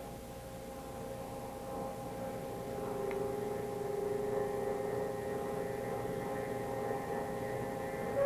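Background music: a low, sustained synthesizer drone of several held tones, with a new lower tone entering about two and a half seconds in. A faint click near the middle.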